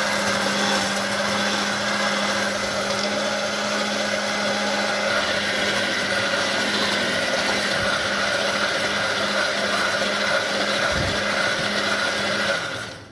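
Handheld immersion (stick) blender running steadily with a constant motor hum as it purées rice porridge in a pan; it switches off near the end.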